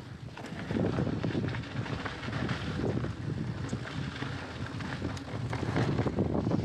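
Mountain bike riding fast down a dirt trail: wind rushing over the camera's microphone mixed with tyre noise on dirt and the rattling of the bike, getting louder about a second in.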